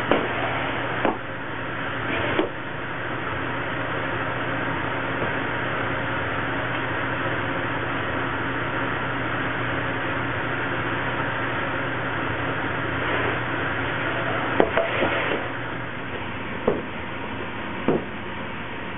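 Steady hum and hiss of bakery machinery, with a few sharp knocks of perforated metal baguette trays being handled and set down on a wooden workbench: a couple in the first few seconds and several more near the end.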